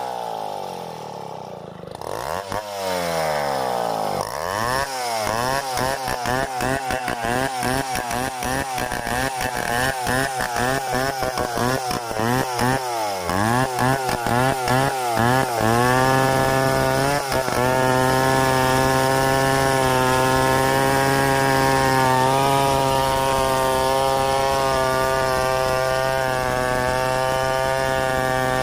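Stihl 070 two-stroke chainsaw milling a log freehand: its engine speed rises and falls over and over for about the first half, then holds steady at high revs through the rest.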